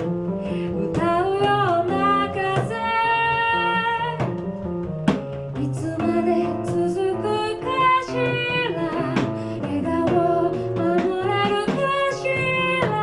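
Live band music: piano and drum kit with a female voice singing a held, gliding melody over them, and sharp drum hits about five and eight seconds in.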